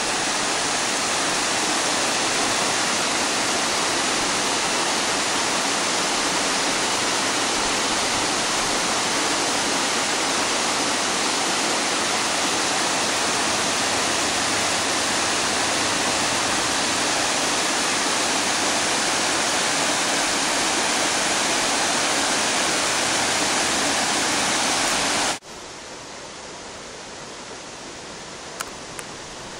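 Waterfall: water cascading over rock ledges with a loud, steady rush. About 25 seconds in it cuts off abruptly to a much quieter, steady rush.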